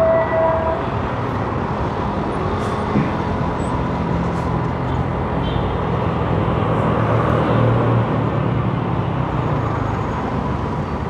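Small motorcycle riding through city traffic: its engine running under steady wind and road noise, with surrounding traffic and a passing bus. The engine note builds a few seconds in and eases off near the end; a brief beep-like tone sounds right at the start.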